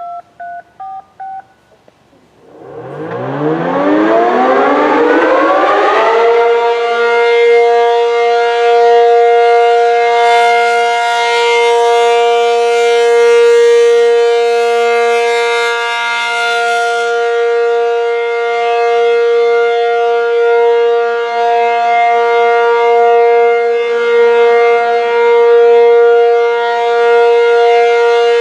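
A few short touch-tone (DTMF) beeps, then an American Signal Corporation T-135 electromechanical outdoor warning siren winding up from a low growl over about four seconds into a loud steady tone. The tone holds with its loudness swelling and fading slightly.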